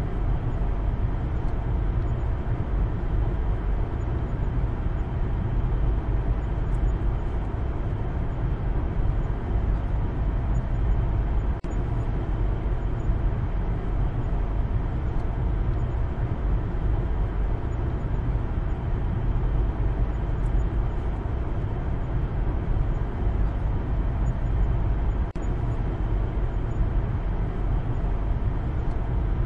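Steady low rumble of road and engine noise inside a moving Maruti Suzuki Baleno's cabin.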